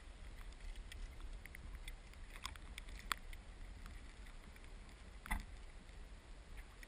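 Creek water lapping and trickling right at a microphone held at the water surface, faint, over a steady low rumble, with scattered small splashes; two sharper ones come about three and five seconds in.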